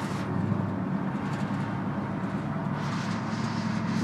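Pickup truck engine running steadily at cruising speed with road noise, heard from inside the cab.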